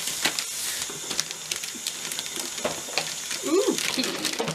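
Gift-wrapping paper and a paper gift bag rustling and crinkling in irregular small crackles as presents are handled and opened, with a brief vocal sound about three and a half seconds in.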